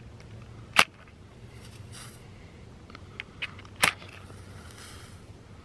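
A water-soaked Coghlan's waterproof safety match struck on the box's striker strip: a sharp scratch just under a second in, a few light scrapes, then a second sharp strike near four seconds in that lights it, followed by a faint hiss as the head flares.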